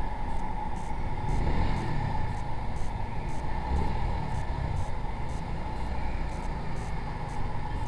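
Yamaha SZ-R single-cylinder motorcycle engine running steadily while the bike rides up a ramp, with a low rumble.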